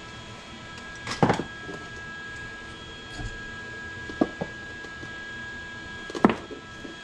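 A few sharp knocks and clatters, like tools or parts being handled and set down, about a second in, twice close together around four seconds in, and once near the end, over a steady hum with a thin high tone.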